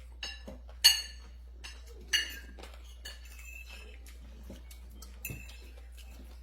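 Tableware clinking at a meal: two sharp ringing clinks about one and two seconds in, with a few fainter taps and knocks around them.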